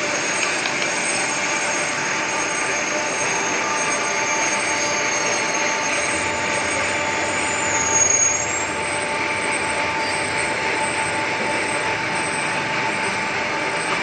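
Lathe turning a 250 mm diameter bar of XM-19 (Nitronic 50) stainless steel: a steady machining noise with a high whine, and a brief louder, rising high tone about eight seconds in.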